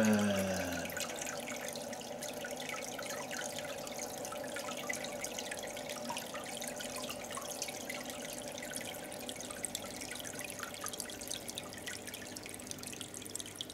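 Aquarium filter running: water trickling and dripping into the tank, with a faint steady hum and scattered small drip ticks. In the first second the tail of a falling, siren-like tone fades out.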